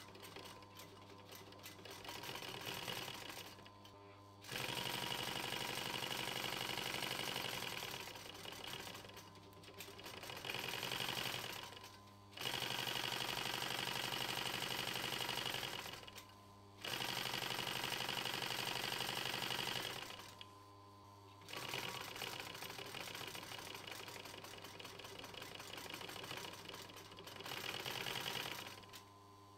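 SunStar industrial sewing machine stitching two layers of Alcantara sun visor cover together, running in stretches of a few seconds and stopping briefly about five times.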